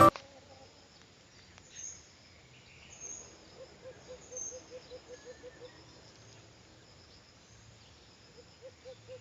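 Quiet outdoor ambience with a low, rapid pulsed animal call, about five pulses a second for about two seconds, heard midway and again near the end, over faint high chirps.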